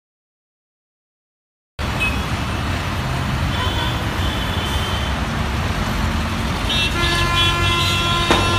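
Silence for about the first two seconds, then busy street traffic: steady engine and road noise with vehicle horns honking, one short horn in the middle and several overlapping horns near the end.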